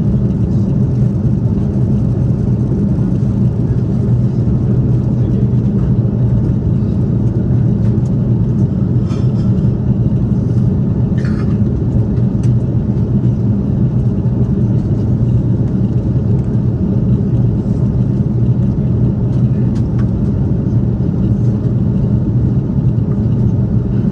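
Steady low drone of an airliner cabin in flight: jet engine and airflow noise heard from a window seat as the plane descends towards landing.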